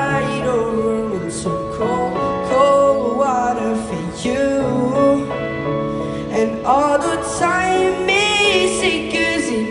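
A young male singer singing into a handheld microphone over backing music with held chords.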